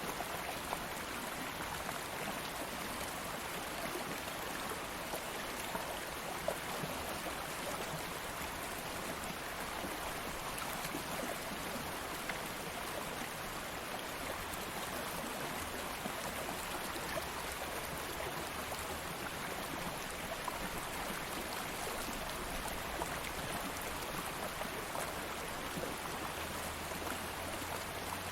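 Stream of water flowing steadily over stones, an even rushing with small splashes and trickles.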